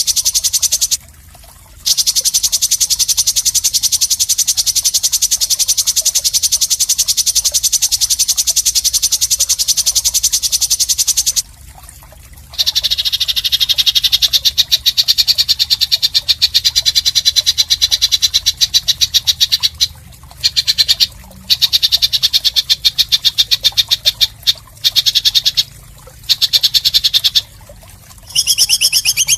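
Songbird masteran song: a harsh, very fast rattling trill held in long bouts, several seconds each, broken by short pauses. This is the rasping 'mbeset' kind of fill-in used to tutor competition songbirds.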